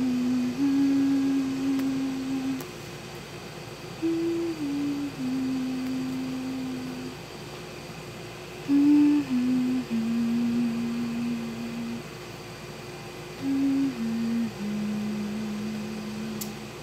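A person humming a slow lullaby: four short phrases, each a few held notes stepping down in pitch, the last note of each held longest.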